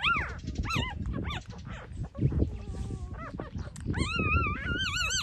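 Six-day-old newborn puppies whimpering and squealing while nursing. There are several short, arching high cries in the first second and a half, then a longer wavering cry about four seconds in, all over a low rumbling noise.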